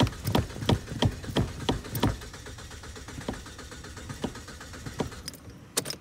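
Dodge car engine being cranked by its starter, turning over in a slow, even rhythm of about three pulses a second without catching. The cranking stops about two seconds in, leaving a few faint ticks.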